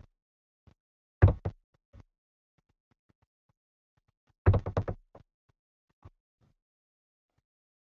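Short sharp knocks in two quick clusters, a loud group about a second in and another from about four and a half seconds in, with a few faint single taps between.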